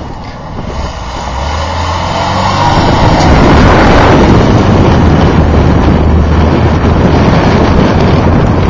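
A vehicle engine running hard, building up over the first few seconds and then holding steady, under loud rushing noise.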